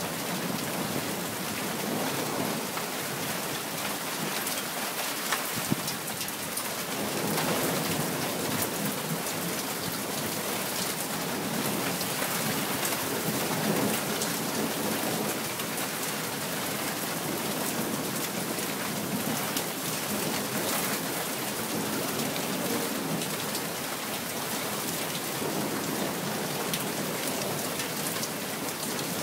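Thunderstorm: rain pouring steadily, with low rumbles of thunder swelling up a few times.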